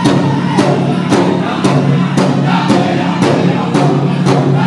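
Powwow drum group singing over a steady unison drum beat, about two beats a second.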